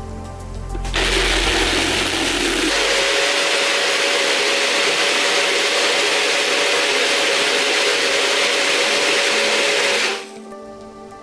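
Sencor personal high-speed blender running, blending cashews, dates and soy milk into a thick batter. It starts about a second in, its hum steps up in pitch a couple of seconds later as it speeds up, and it stops suddenly near the end.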